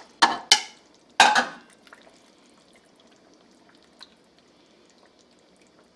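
Raw peeled shrimp scraped out of a bowl with metal tongs, dropping into thick tomato sauce in a few wet plops during the first second and a half. After that there is only a faint steady hiss, with a single light tap about four seconds in.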